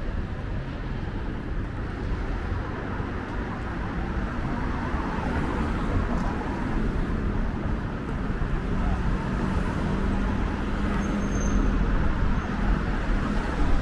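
City road traffic: a steady rumble of cars passing close by. In the second half a low engine drone builds as a minibus comes nearer.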